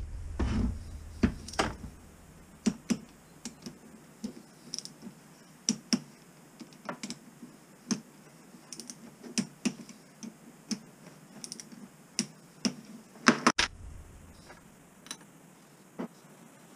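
Irregular sharp metallic clicks and taps of tools and parts being handled as the Honda HRX 537's hydrostatic drive unit is bolted back together on a workbench. A louder low bump comes near the start and again about 13 seconds in.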